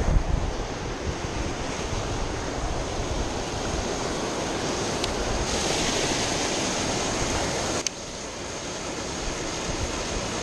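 Rushing water churning through a concrete irrigation-canal gate, a steady loud wash, with wind buffeting the microphone at the start. The level drops suddenly about eight seconds in and the rush carries on.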